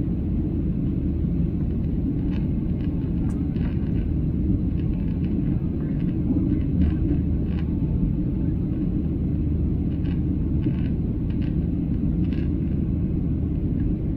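Steady low drone of a jet airliner in flight heard inside the cabin: engine and airflow noise, even in level throughout, with a few faint short ticks here and there.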